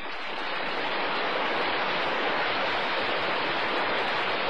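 Large audience applauding, a dense steady clapping that swells up within the first second after the end of a speech line.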